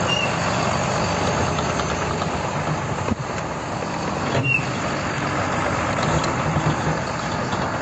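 Heavy diesel engine running steadily under load as a tractor tows a tracked armoured vehicle on a cable, a dense mechanical noise with a low hum, and two brief high squeaks, one just after the start and one about four and a half seconds in.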